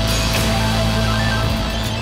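Background music with sustained low notes and a guitar-like sound over them, at a steady level.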